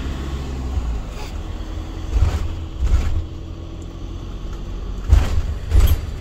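Camper van running at low speed, heard from inside the cab: a steady low rumble broken by four dull low thumps, the last two near the end the loudest.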